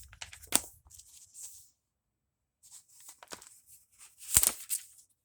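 Bible pages being turned and leafed through: a series of short paper rustles and flicks, with a pause in the middle and the loudest flick about four seconds in.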